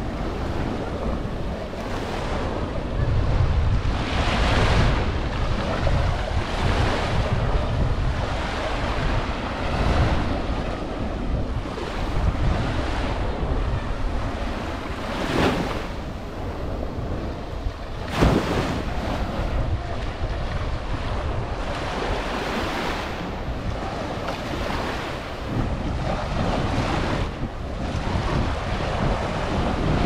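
Small ocean waves breaking and washing up the sand at the water's edge in repeated surges, with wind buffeting the microphone in a steady low rumble.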